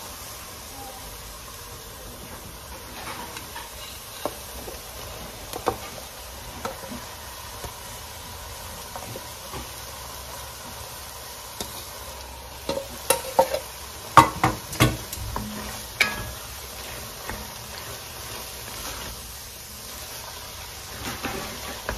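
Food sizzling in an enamelled cast-iron pot on a gas stove, with a wooden spatula scraping and knocking against the pot. About midway there is a cluster of louder knocks as diced meat is tipped in from a bowl and stirred through the mushrooms.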